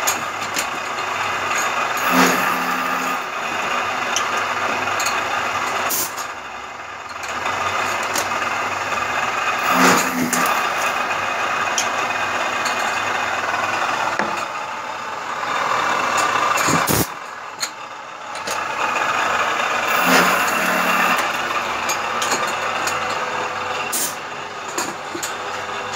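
Vertical milling machine running as aluminium pneumatic cylinder tubes are faced square at their ends, one after another. A steady machining noise is broken about every eight to ten seconds by a short low hum, with a few sharp knocks.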